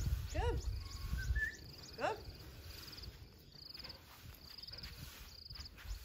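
Insect chirping in short pulsed trills, repeating about once a second, with two brief sweeping calls in the first two seconds and a low rumble at the start.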